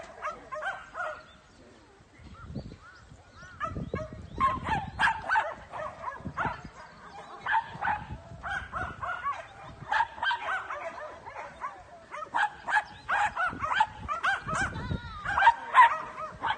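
A dog barking and yipping over and over in quick strings of short, high barks, loudest near the end.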